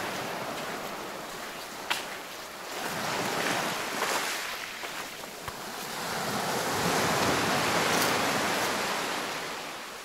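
Small sea waves breaking and washing up a sand-and-pebble beach, the surf swelling twice as successive waves run up the shore.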